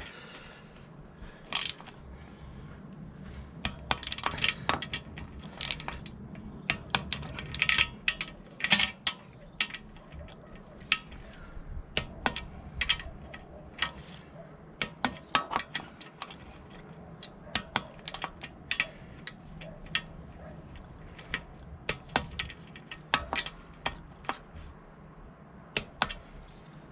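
Socket wrench working on the front fork spindle clamp nuts of a Triumph Bonneville T140, giving irregular sharp metal clicks and clinks, some in quick runs, as the clamp fixings are tightened in turn. A faint steady low hum runs underneath.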